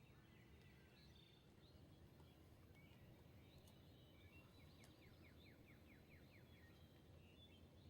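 Near silence: faint outdoor ambience with small birds chirping, including a quick run of about eight short falling notes midway, over a low steady rumble.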